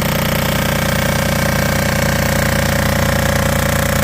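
Head surfacing machine cutting across the deck face of a Subaru 2.5 SOHC cylinder head on the final pass: a steady machining drone with a fast, even chatter, the cutter in contact all the way across the head.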